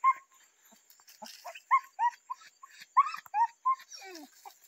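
Perdigueiro hunting dog yelping and whining in a run of short, high yips, two or three a second.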